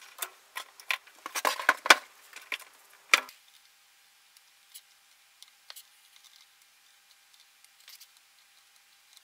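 Handling noise from soldering tools and the metal preamp chassis being picked up and moved about on a wooden bench: a run of sharp clicks and knocks lasting about three seconds, then only a few faint taps.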